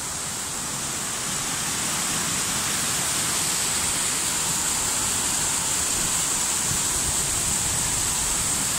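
Small rocky brook rushing over stones: a steady hiss of running water that grows a little louder over the first two seconds.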